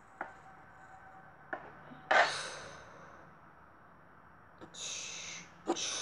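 Two light clicks of a pencil tapping water beads on a tabletop, then a loud breathy puff of breath about two seconds in and two more breathy hisses near the end.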